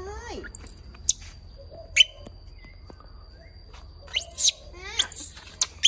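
Baby monkey giving a string of short high squeaks and chirping calls, several sweeping sharply up in pitch, with a steady faint high whine behind them for the first few seconds.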